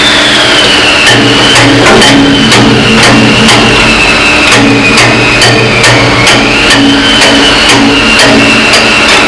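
Hammer blows on a stuck steel cylinder pin, about two a second, driving it out of its bushing. An engine runs steadily underneath, with a high wavering whine.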